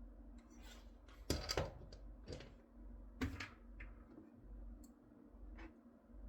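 A handful of short, sharp clicks and knocks of hard objects being handled, the loudest about a second and a half in and again about three seconds in, over a low steady hum.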